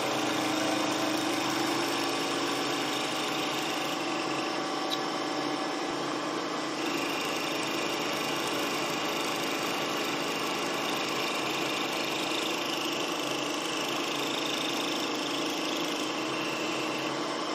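Milling machine spindle running with a small end mill taking light shaving cuts in the jaw pocket of a lathe parting blade, under flood coolant. A steady machine whine with a high cutting tone that shifts in pitch about seven seconds in.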